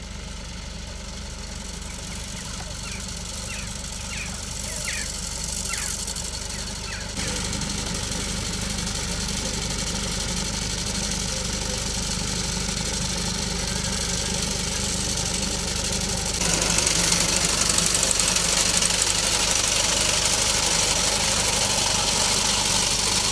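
Farm tractor engine running steadily, with a few short bird chirps in the first few seconds. About two thirds of the way through, a louder, harsher motor mower cutting grass takes over.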